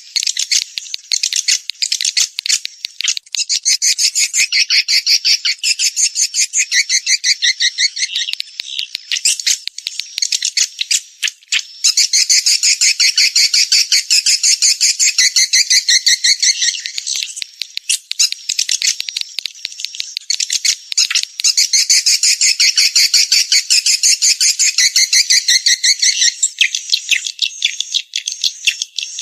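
Swiftlet calls: a dense, rapid, high-pitched chittering twitter of many notes a second, easing off briefly a couple of times before picking up again. This is the kind of swiftlet call played as a lure to draw swiftlets to roost and nest.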